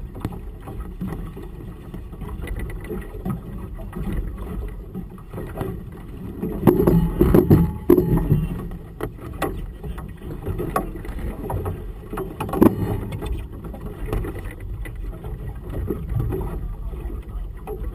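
Waves slapping against a small boat's hull, with wind on the microphone and irregular knocks. A louder stretch of splashing and knocking comes about seven seconds in, and there is a single sharp knock a little before the thirteen-second mark.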